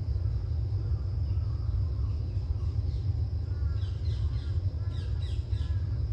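A steady low rumble, with a bird calling in a run of short, falling chirps, several a second, from about three seconds in.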